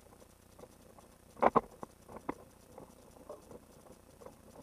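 Light water lapping and pattering against a kayak hull, with a pair of sharp knocks about a second and a half in and another just after two seconds.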